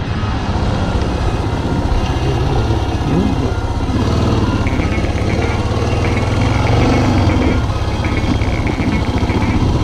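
Yamaha XT600's air-cooled single-cylinder four-stroke engine running while the bike rides along a dirt track, with wind and tyre noise over it. The revs briefly rise and fall about three seconds in.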